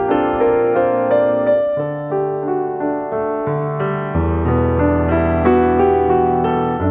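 Background piano music: notes struck about twice a second, each fading, over low bass notes that change every second or two.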